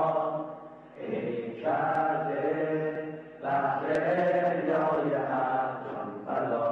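Many voices chanting a slogan in unison, in repeated phrases about two and a half seconds long with short breaks between them.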